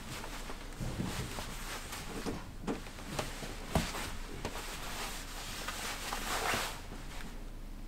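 Fabric rustling as hands handle and smooth a knit sweater on a wooden table, with irregular swishes and a few soft knocks.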